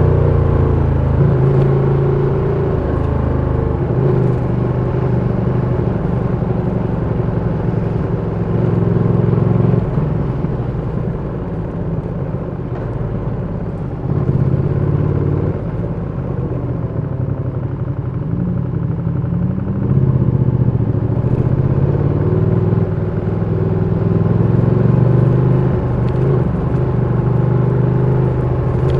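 Ducati Panigale V2's 955 cc twin-cylinder engine running through low-speed riding, its pitch falling as the revs drop at the start, then holding fairly low with a couple of gentle rises in revs later on.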